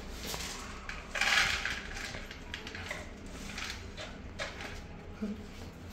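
Feral mother cat hissing once, a short breathy hiss about a second in, over small clicks and scuffles of kittens moving about in a plastic carrier.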